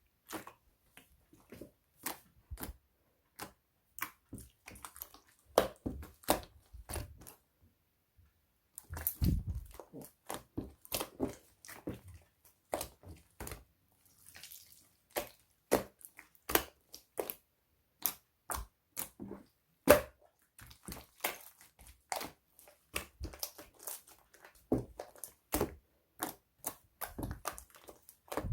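Slime being squeezed and pressed by hand, giving irregular sharp clicks and pops, several a second, with a few louder crackles in places.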